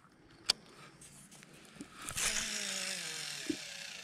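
A sharp click about half a second in, then from about two seconds in the spool of a Sougayilang Warrior WA 6000 baitcasting reel whirring as line pays out on a long cast, its pitch slowly falling as the spool slows.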